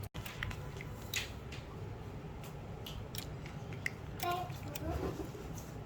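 Scattered light clicks and small rattles of plastic toy-kit parts and a screwdriver being handled during assembly, over a steady low hum.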